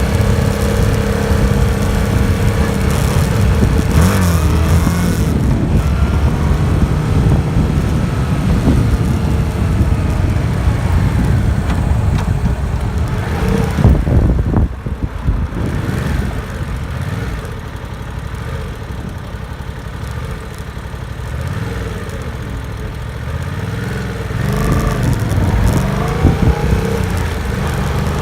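Stock-exhaust 2018 Yamaha MT-07's 689 cc parallel-twin engine under way, its revs rising and falling through the gears. About halfway through the revs drop and it runs quieter for several seconds, then picks up again near the end.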